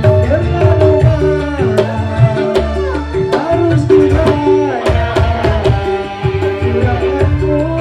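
Live band music: a pair of small hand drums beating a quick rhythm under a Korg Pa700 arranger keyboard and an Ibanez electric guitar, with a sliding melody line over a strong bass.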